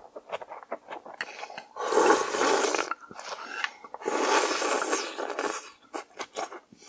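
Loud slurping of thin somyeon noodles and cold mulhoe broth: two long slurps of about a second each, about two seconds in and again about four seconds in, with short wet mouth clicks and smacks around them.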